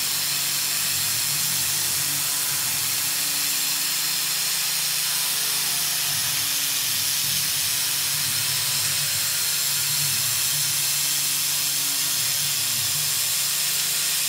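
Tormach 440 CNC mill cutting aluminium with an end mill on a flat finishing pass, under a steady hiss from the coolant nozzle aimed at the cutter. A low hum rises and fades several times as the tool moves around the part.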